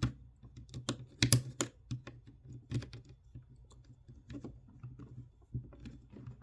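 Hard plastic parts of a Transformers action figure clicking and tapping irregularly as they are handled and repositioned, with a couple of louder clicks about a second and a half in.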